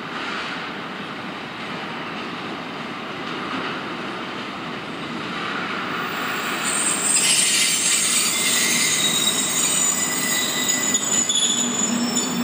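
TGM6D diesel-hydraulic shunting locomotive and tank cars running slowly on the track. From about seven seconds in, the wheels squeal on the tight curve in several high, steady tones, which become the loudest sound.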